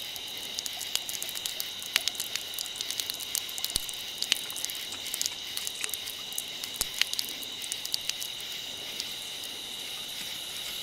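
Steady shrill chorus of night insects, with scattered faint clicks and crackles throughout.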